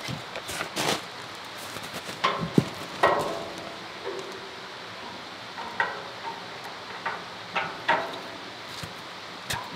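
Irregular metal knocks and clanks as a finned cooler core is handled and fitted into an air compressor's sheet-metal housing, the loudest about three seconds in with a short metallic ring. A steady hiss runs underneath.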